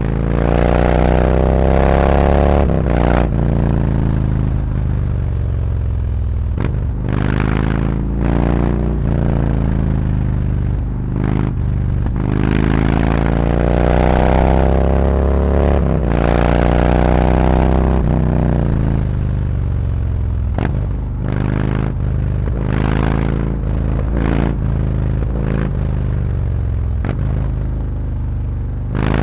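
Harley-Davidson Road Glide's V-twin engine through SuperTrapp 4-inch slip-on mufflers, ridden through town. It rises in pitch several times under acceleration, each pull broken off at a gear change, between stretches of steadier running.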